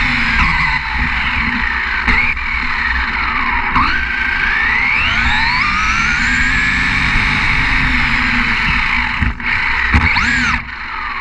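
RC monster truck's motor whining, its pitch rising and falling again and again as the throttle is worked, over a steady rumble of tyres on asphalt. The whine briefly drops away twice near the end as the throttle is let off.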